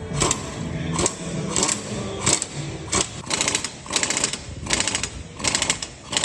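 Hand socket ratchet clicking in quick back-and-forth strokes, about two a second, working a bolt on a car's brake rotor assembly.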